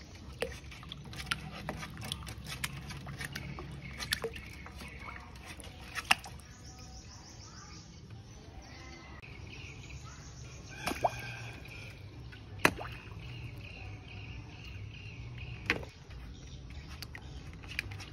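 Water sloshing and dripping in a Florida snapping turtle's tank as the turtle is fed at the surface, with a few sharp clicks or knocks, the loudest about six seconds and about twelve and a half seconds in.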